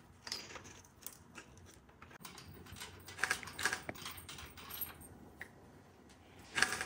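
Faint, scattered light clicks and metallic clinks of hand work on a motorcycle, as small parts and tools are handled, with a small cluster about three seconds in.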